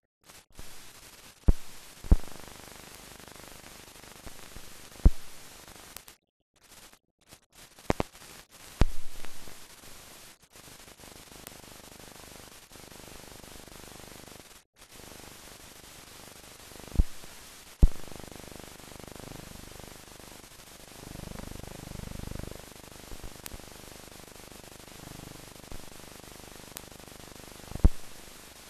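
Steady hiss and static with about eight sharp, loud clicks and pops scattered through it, and two brief drop-outs to silence. This is surface noise with no recorded sound, typical of a mute archive film transfer.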